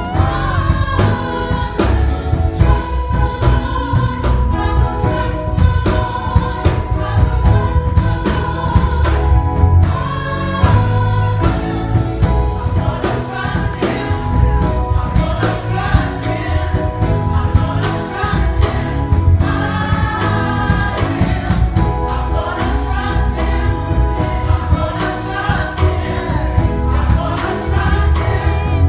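A gospel choir singing in harmony over instrumental accompaniment with a steady bass and beat.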